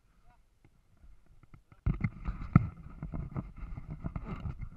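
Mountain bike riding over a rough dry dirt trail, heard through the bike- or body-mounted camera: a rumbling rattle with irregular knocks and clicks that starts suddenly about two seconds in.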